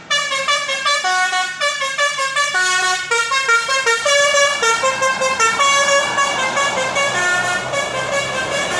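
Bus telolet horn, a multi-tone Basuri-type air horn, playing a fast tune of short stepped notes that keep changing pitch. About halfway through, a rushing noise rises underneath the notes.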